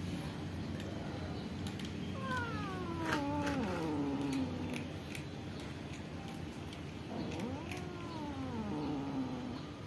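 Domestic cat meowing twice in long, drawn-out calls. The first falls steadily in pitch; the second, a few seconds later, rises and then falls.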